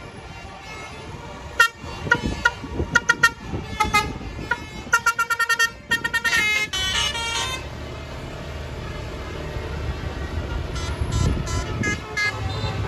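Tour bus sounding its multi-tone Basuri telolet horn: a string of short toots from about a second and a half in, quickening into rapid repeated bursts and a fast run of notes around six to seven seconds. A few more short toots come near the end, over a low engine rumble that grows louder.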